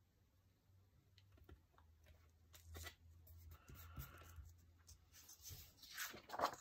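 Faint paper handling: stickers pressed and rubbed onto planner pages with small ticks and scrapes. Near the end, loose planner pages rustle and slide as they are moved.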